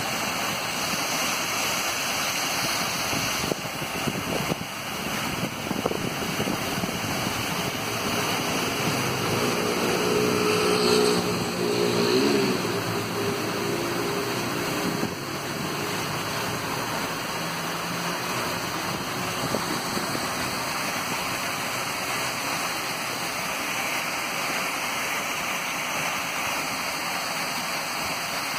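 Water of an ornamental wall cascade falling in many thin streams down a tall wall, a steady rushing splash. Partway through, a passing motor vehicle's engine note swells and bends over it, loudest about twelve seconds in.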